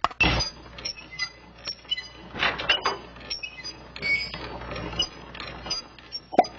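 A busy run of metallic clinks, clanks and knocks, short ringing strikes one after another.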